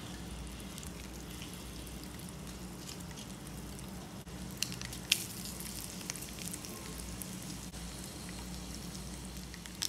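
Mustard seeds and dried red chillies frying in a small pan of mixed ghee and oil, a steady soft sizzle for a tempering. A few sharp clicks come about five seconds in.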